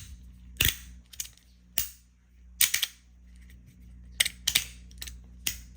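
MOT 2023 magnetic titanium push slider clacking as its plates are snapped back and forth, about eight sharp clacks at irregular spacing. Its damping tape has been taken off, which leaves it clackier.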